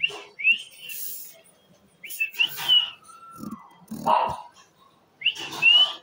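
Alexandrine parakeet calling: three bouts of short, rising whistle-like calls, near the start, about two seconds in and near the end, with rasping sounds between them.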